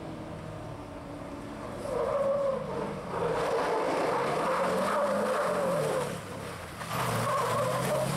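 Toyota Land Cruiser rally SUV's engine revving hard through a dirt corner, with the pitch wavering as the throttle works. The car gets much louder about two seconds in, eases off briefly near the end, then pulls hard again.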